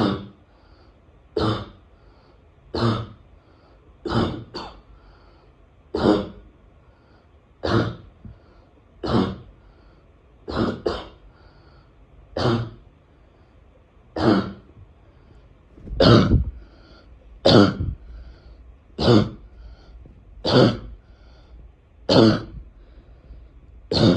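A person's barking cough, repeated as short single coughs about every one and a half seconds, with a couple coming in quick pairs. The coughs grow louder in the second half.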